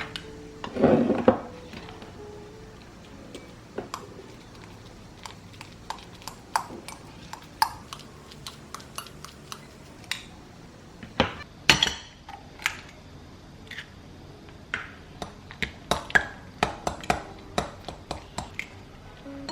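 Kitchen utensils and dishes clinking and knocking during home cooking: irregular light taps and clicks throughout, with a brief louder noise about a second in.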